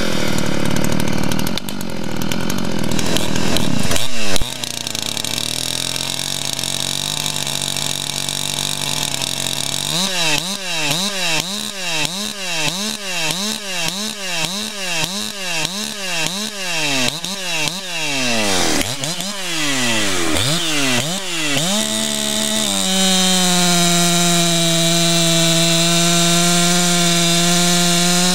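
Makita/Dolmar PS-7900 79 cc two-stroke chainsaw. It revs down and idles, then is blipped up and down over and over, a little more than once a second. Near the end it holds steady at full throttle, cutting through a large log.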